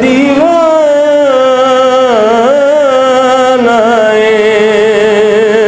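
A man singing a devotional verse unaccompanied, drawing out one long melismatic note with a wavering vibrato that steps down in pitch a little past halfway.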